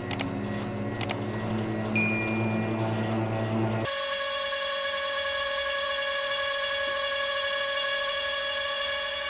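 Benchtop lathe running under load while form-knurling an aluminium bar, its motor giving a steady whine made of several tones. There are a couple of light clicks and a short high metallic ring about two seconds in. Near four seconds the whine changes abruptly to a higher steady pitch.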